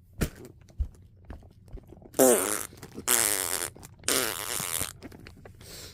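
Three loud fart sounds, buzzing with a hissy edge, each half a second to a second long, after a few faint taps.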